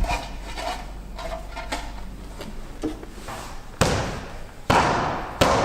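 Sharp-edged metal roof flashing being handled and pushed into place: light scraping and clicking, then three loud bangs a little under a second apart near the end, each ringing briefly as it fades.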